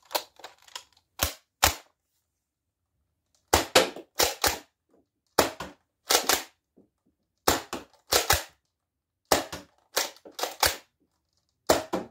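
Nerf foam-dart pistol being primed and fired over and over: a string of sharp plastic clacks, mostly in quick pairs, with short pauses between the groups.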